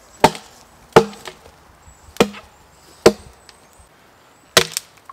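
Axe chopping side branches off flush from a standing conifer trunk: about six sharp strikes of the blade into wood, unevenly spaced, two in quick succession near the end.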